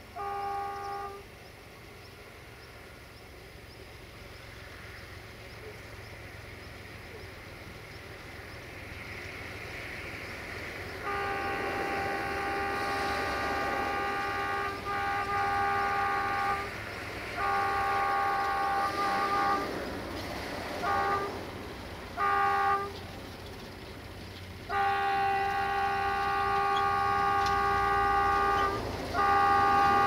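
Chord horn of an Electroputere LDE2100 (class 060-DA) diesel-electric locomotive sounded again and again. One blast cuts off about a second in, and after a long gap comes a string of short and long blasts, including a held blast of about four seconds near the end. Beneath the horn, the locomotive's running grows steadily louder as it approaches.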